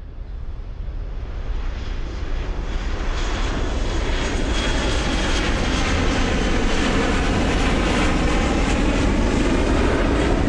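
Spaceship engine sound effect from an animated cartoon: a steady rushing rumble with a deep low end. It swells over the first few seconds, then holds even.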